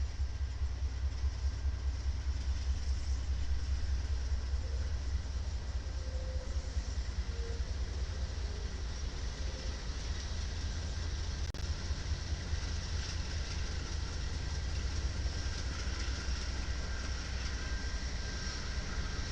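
A train running past on the tracks: a steady low rumble with continuous rail noise.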